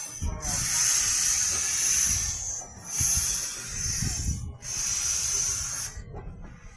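Steam hissing from the 15-inch-gauge steam locomotive No 10 Doctor Syn, coming in long surges of one to two seconds with brief breaks between them, over a low rumble. The hiss stops about six seconds in.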